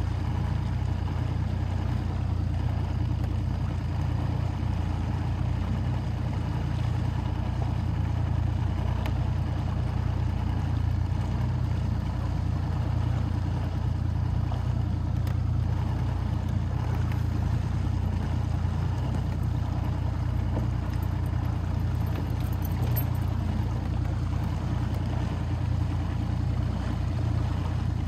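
Boat motor running at a steady speed: a low, even drone with a hiss over it.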